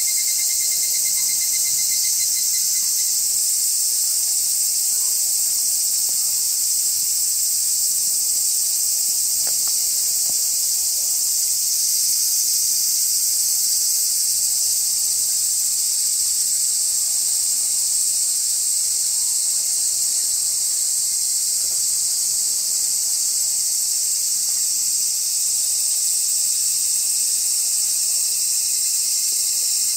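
Dense, steady chorus of insects: a high, unbroken hiss with no pauses.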